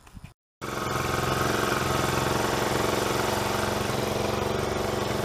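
Small four-stroke gas engine of a T-post driver running steadily. It comes in abruptly after a brief silent gap under a second in.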